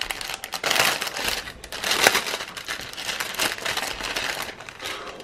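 Thin clear plastic bag crinkling as hands pull it open to take out a bundle of cross-stitch embroidery threads, loudest in the first couple of seconds and dying down near the end.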